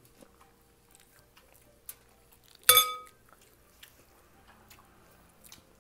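A metal spoon clinks once against a glass serving bowl a little under three seconds in, ringing briefly. Otherwise there are only a few faint clicks from eating.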